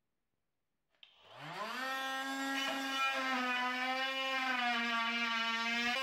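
Parkside Performance PAMFWP 20 Li B2 cordless brushless oscillating multi-tool starting about a second in: its buzz rises in pitch as it winds up, then holds a steady high-pitched buzz that wavers slightly as the blade cuts into a spruce beam.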